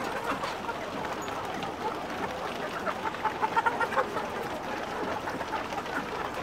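A flock of chickens clucking and chirping together, busiest about three to four seconds in.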